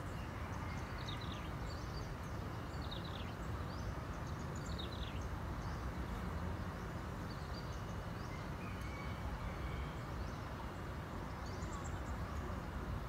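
Open-air ambience by a pond: a steady low rumble of wind or distant noise, with a small bird giving short, falling chirps several times in the first five seconds and a few more near the end.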